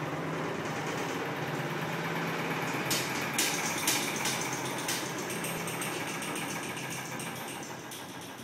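Washing machine running with a steady mechanical hum, a few sharp clicks or knocks about halfway through, and the hum slowly growing quieter near the end.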